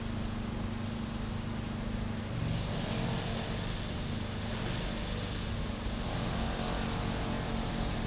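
Steady outdoor background noise: a low hum for the first couple of seconds, then a high hiss joining about two and a half seconds in and fading out a few seconds later. No bird call stands out.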